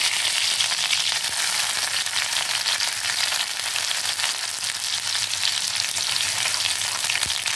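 Chopped garlic and curry leaves sizzling in hot oil in a kadai, a steady crackling hiss as they fry. A spoon stirs them near the end.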